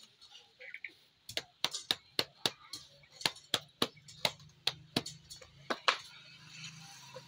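Hand patting jowar (sorghum) bhakri dough flat in a steel plate: a quick run of sharp slaps, about three a second, starting about a second in and stopping near the end. A low hum sits underneath from about halfway.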